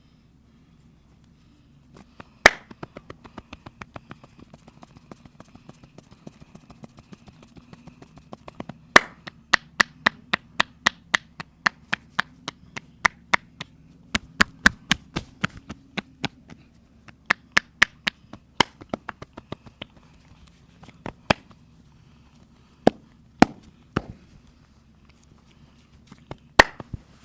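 Sharp hand strikes of a head and back massage: scattered single smacks, then from about nine seconds in a quick even run of claps and slaps, about three a second, lasting some ten seconds.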